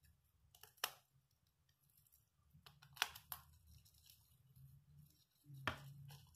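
Clear plastic wrap crinkling as a ball of raw sour pork sausage is wrapped and twisted shut by hand, with a few sharp crackles: about a second in, twice around three seconds in, and again near the end, over a faint low hum.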